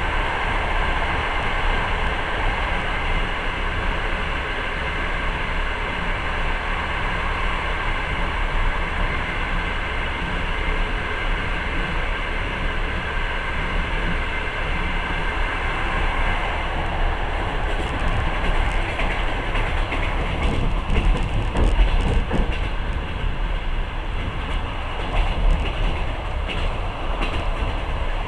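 Running noise of a passenger train heard through the carriage window, with a steady rush from a freight train passing close alongside. About 17 s in the rush eases and a series of sharp clicks from the wheels over the rail joints comes through, clickety-clack.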